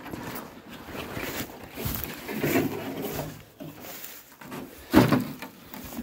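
Footsteps and handling noise rustling and crunching through dry grass and leaf litter, with a short loud noise about five seconds in.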